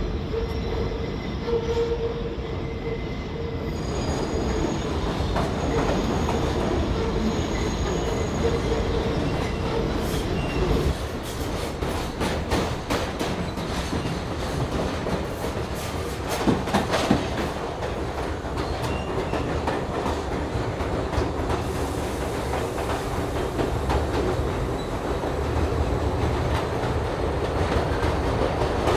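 New York City subway train running on elevated track over a steady low rumble, with a steady wheel squeal for roughly the first ten seconds, then a stretch of rapid wheel clicks and clacks over the rails.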